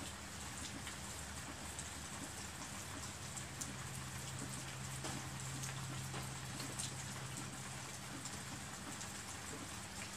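Steady rain falling, an even hiss with many scattered drips ticking.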